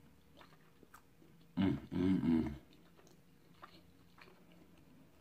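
A man chewing a mouthful of baked chicken, with a loud closed-mouth "mmm" of enjoyment about one and a half seconds in, a short hum then a longer one. Faint chewing noises come before and after.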